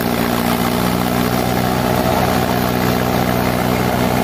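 Mahindra 575 XP Plus tractor's 47 hp four-cylinder diesel engine running steadily under load while it drives a wheat thresher, with the thresher's drum running along with it. The thresher is one sized for a 90–100 hp tractor, which the farmers fear is too heavy a load for this engine.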